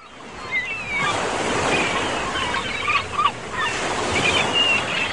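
Ocean surf washing steadily, fading in over the first second, with short bird calls scattered over it.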